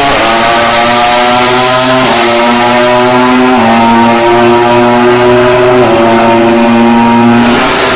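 Ducati Desmosedici GP21 MotoGP bike's V4 engine running at near-constant revs, its pitch stepping up or down slightly a few times.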